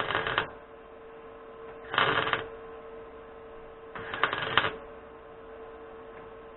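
Semi-automatic (MIG) welder laying short tack welds on a car's steel sill. There are three half-second bursts of crackling about two seconds apart, with a faint steady hum underneath.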